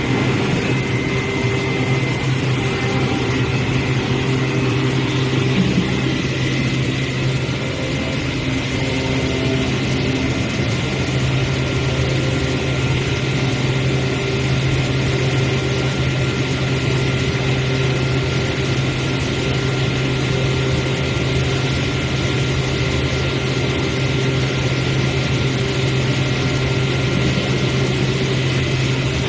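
CNC cutting machine running: a steady mechanical hum with a thin constant whine above it.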